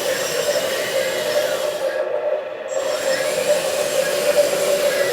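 Simulated crawler-track sound effect from the sound module speaker of a 1:14 LESU 9150 RC hydraulic excavator, played as its tracks are spun: a steady grinding clatter with a high hiss that drops out briefly about two seconds in.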